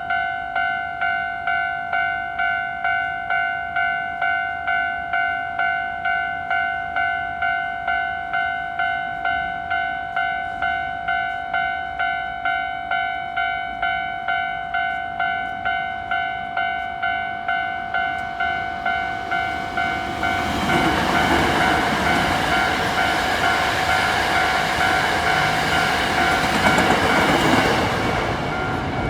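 Japanese level-crossing alarm bell dinging steadily, a little under twice a second. About two-thirds of the way in, a Hankyu 9300-series limited express train passes through the crossing, its wheel and rail noise rising loud over the bell and easing off near the end.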